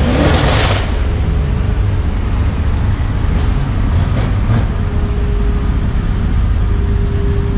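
Mercedes-AMG car engines running with a steady, deep low rumble, and a brief rising rev in the first second as a car pulls away.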